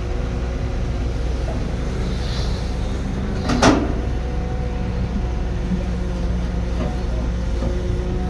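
Heavy construction machine's diesel engine running steadily, with a single sharp metallic clank about three and a half seconds in.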